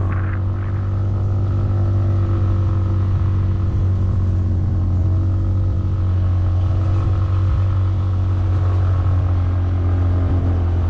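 Motorcycle engine running at a steady speed while riding, a constant low hum that does not change.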